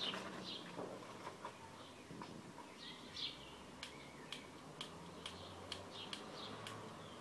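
Birds chirping in short falling calls, with scattered sharp clicks throughout.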